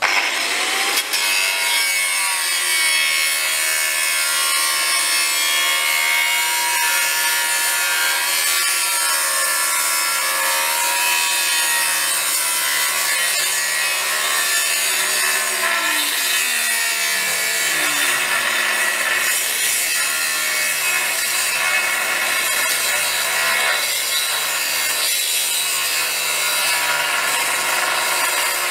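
DeWalt abrasive chop saw cutting steel: a continuous, steady grinding of the cut-off wheel through metal.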